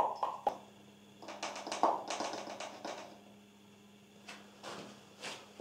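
Faint handling sounds of a plastic oil bottle and funnel while topping up engine oil: a few light taps, a brief crackly rustle about a second and a half in, and small knocks near the end as the funnel is lifted out, over a faint steady hum.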